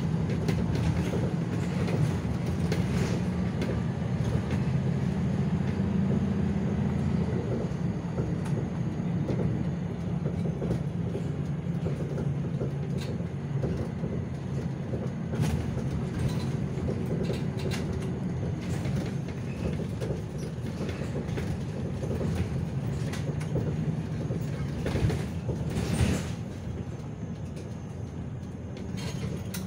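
City bus engine running as the bus drives, heard from inside the passenger cabin, with the body and fittings rattling and clicking throughout. A couple of louder knocks come near the end, and then the noise drops a little as the bus slows.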